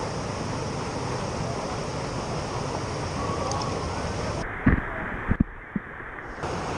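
Steady rush of wind buffeting the microphone during a motorcycle ride. Between about four and a half and six seconds in, the rush briefly thins out and a few sharp knocks sound, the first the loudest.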